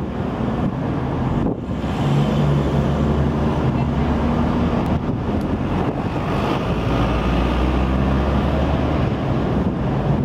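Steady road traffic noise, a low rumble of passing cars and trucks, with wind buffeting the microphone.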